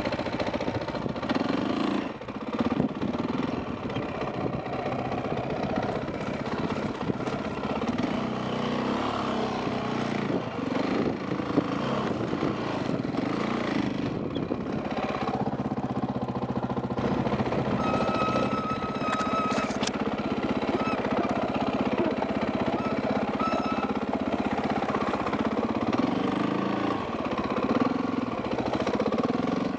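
Dirt bike engine running at low to moderate revs, the throttle rising and falling as the bike picks its way along the trail.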